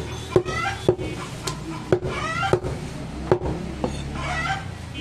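Heavy butcher's chopper cutting goat meat on a round wooden log block: about seven sharp chops, roughly one every half second.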